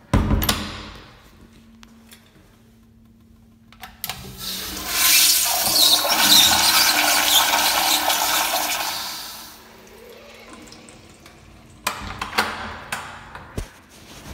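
A sharp bang, then a commercial flushometer toilet flushing: about four seconds in a loud rush of water starts, runs for about five seconds and dies away. A few clicks and knocks follow near the end.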